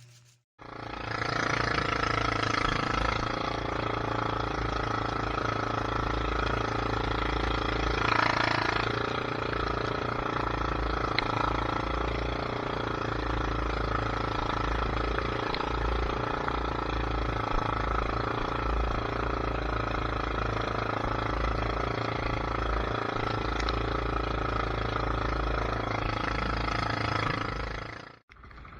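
A vehicle engine running steadily with a low, uneven rumble, starting and stopping abruptly.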